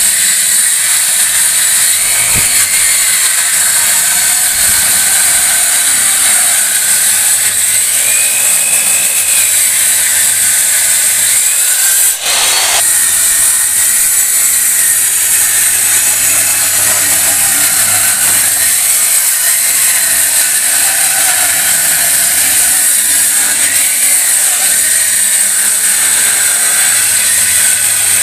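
Handheld electric disc cutter cutting into an aerated concrete (hebel) block wall: a continuous high whine and gritty hiss of the spinning blade in the block. The motor's pitch sags and recovers as the blade is pushed into the cut, and there is a brief dip about twelve seconds in.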